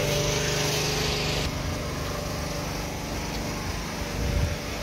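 An engine running steadily, with a hiss over it that stops about a second and a half in.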